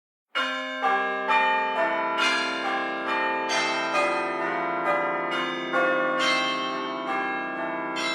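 A church-bell ringtone: several tuned bells struck in turn, about two strikes a second, each ringing on under the next. It starts suddenly out of silence.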